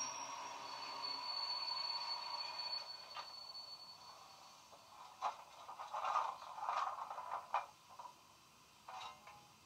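Stationary steam locomotive sounds from a model railway DCC sound decoder, Jamie Goodman's 3-cylinder LMS sound file in a LokSound 5, played through a small 25x25x7 mm megabass speaker. A steady hiss fades over the first few seconds, then come a handful of irregular short knocks and scraping bursts.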